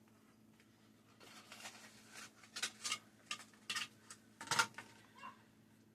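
Kitchen handling noises as a package of crescent roll dough is dealt with: a run of short crinkles, clicks and taps, the loudest about four and a half seconds in.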